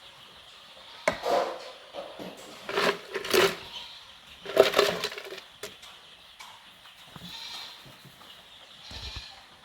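Two-week-old broiler chicks scrambling and squawking in the coop as one is chased by hand. Three loud bursts of scuffling and calling, about a second, three seconds and five seconds in, over a faint background of peeping.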